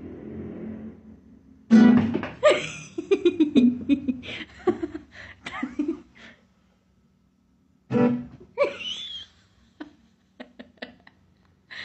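An acoustic guitar is strummed, suddenly and loudly, and a person laughs for several seconds. About eight seconds in the guitar is strummed again, followed by a short high cry.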